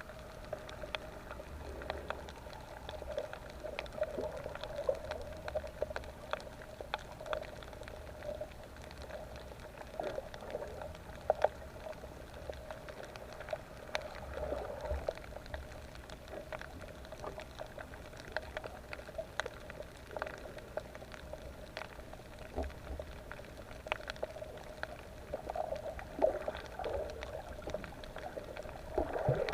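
Water bubbling and gurgling as heard underwater, with many scattered sharp clicks and crackles.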